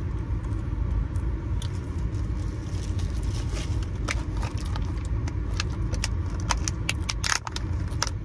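Steady low rumble inside a car. From about four seconds in, a run of sharp crackling clicks as a snack in clear plastic packaging is handled.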